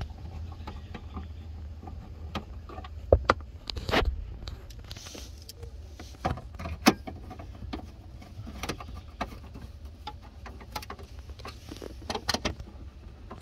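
Scattered clicks and taps of a hand screwdriver and plastic trim as screws are driven into the lower dash panel under the steering column, over a steady low hum. A cluster of quick taps comes near the end.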